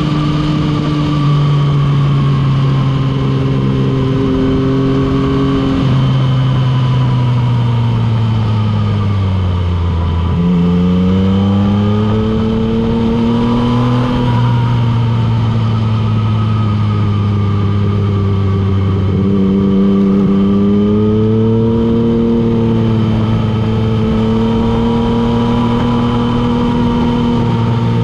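Motorcycle engine running on the move with wind rush. Its pitch sags over several seconds, jumps up about ten seconds in, then rises and falls with the throttle through the bends.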